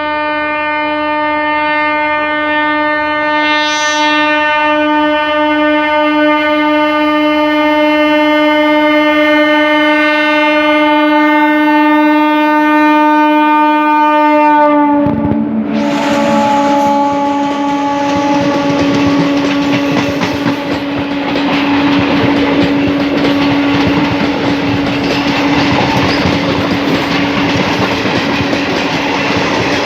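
WAG-7 electric locomotive's horn sounding one long unbroken blast. About halfway through, the loud rumble and wheel clatter of a passing train start suddenly, and the horn tone carries on underneath to the end.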